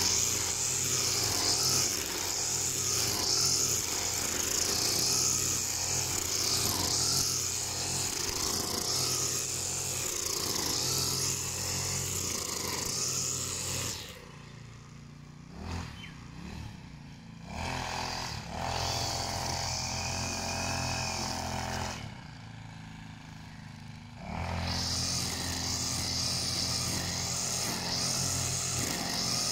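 Petrol brush cutter's engine running at high revs as its nylon line whips through grass, with a steady high hiss. About halfway through it twice goes quieter for a few seconds, then picks up again.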